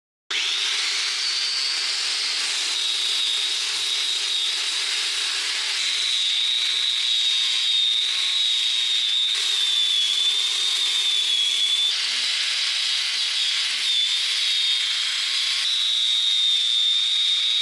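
Handheld power sander with a round sanding disc running against an old wooden plank: a steady high whine over the rasp of sandpaper on wood. It cuts in suddenly just after the start.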